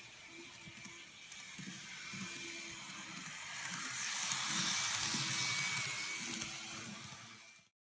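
N-gauge TOMIX KiHa 40 2000-series model railcar running on its track, its small motor whining over the rumble of wheels on the rails. The sound swells as the car passes close by about four seconds in, then cuts off suddenly near the end.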